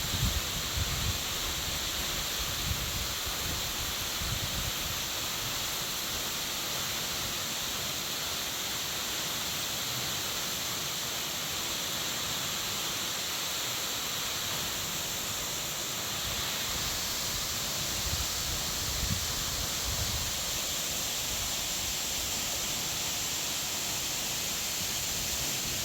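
Steady rush of flowing water, an even hiss with no change. Occasional low wind buffets on the microphone.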